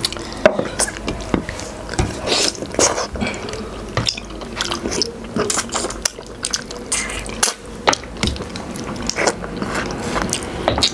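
Irregular small clicks, crunches and wet squishes as soft-cooked nehari bones are pulled apart and bitten into.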